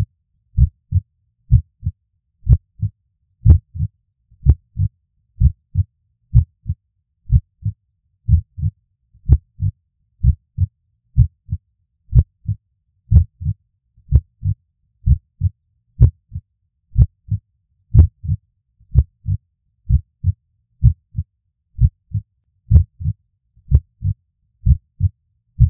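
Heartbeat sound effect: slow, steady double thumps, about one lub-dub a second.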